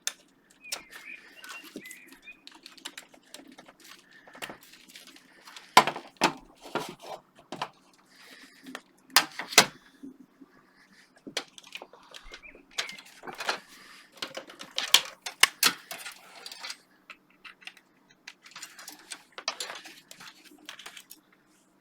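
Irregular clicks, knocks and light metallic rattles of computer hardware being handled: a hard drive and its cables being fitted into a desktop PC's metal case. The loudest knocks come about six seconds in, around nine to ten seconds, and again between thirteen and sixteen seconds.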